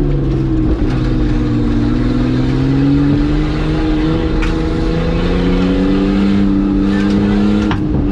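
Skyline-engined Nissan Patrol running under load on a dirt trail, heard from inside the cabin: the engine note dips about a second in, then climbs steadily with the throttle, with a brief drop near the end.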